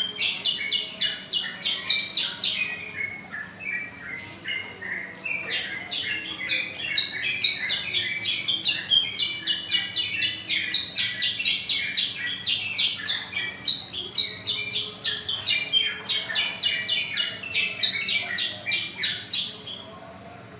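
Caged yellow-fronted canary (kutilang sutra) singing loudly in long phrases of rapid chirping notes, with short lulls about four seconds in and again around thirteen seconds.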